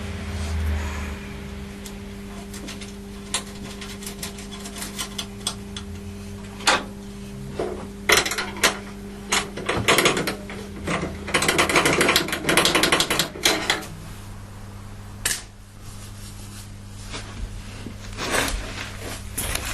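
Metal clicks, clinks and knocks of hand tools and bolts while engine mounting bolts are being fitted, with a dense run of rapid clicking about eleven seconds in, over a steady low hum.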